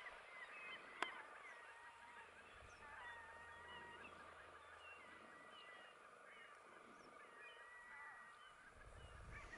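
Faint birds calling, many short overlapping calls, with a single sharp click about a second in.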